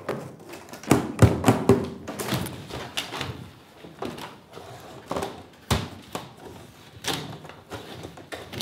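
Knife paring the end of a chestnut-wood basket splint to a point: a run of irregular sharp cuts and scrapes, thickest about a second in, with a lone sharp crack later.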